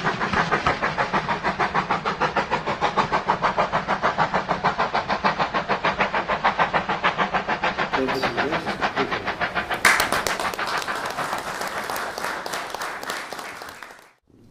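Steam train running with a fast, even beat, the sound turning brighter about two-thirds of the way through, then fading out just before the end.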